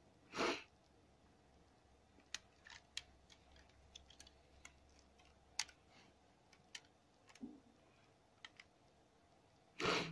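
Rubber bands being stretched and snapped around a smartphone to clamp its freshly glued LCD screen while the glue sets: faint, scattered light clicks and snaps. A short louder rush of noise comes about half a second in, and another at the very end.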